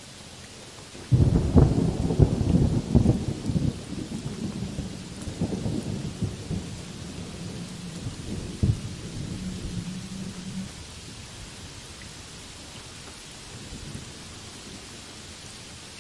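Heavy rain falling on trees and broad banana leaves, a steady hiss. About a second in, a loud clap of thunder breaks out with a run of cracks and rumbles on, dying away around ten seconds in.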